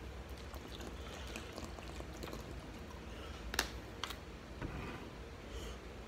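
Quiet eating and handling sounds at a table: soft mouth and hand noises over a low room hum, with a sharp click about three and a half seconds in and a smaller one just after.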